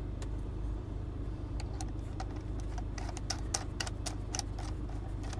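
Irregular light clicks and ticks as fingers spin a knurled terminal nut down over a crimped ring connector on a power inverter's battery terminal, over a steady low hum.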